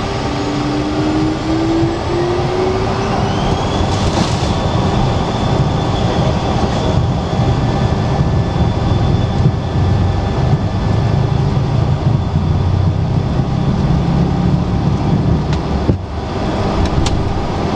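Cessna Citation Latitude's turbofan engines heard from the cockpit as the jet rolls on the ground: a whine rises in pitch over the first few seconds as the engines spool up, then holds steady over a heavy rumble. A few clicks sound near the end.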